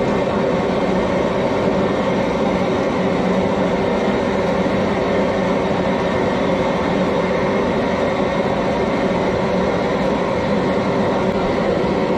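Large crawfish-boil pot at a rolling boil over its burner: a loud, steady roar with a constant hum running through it.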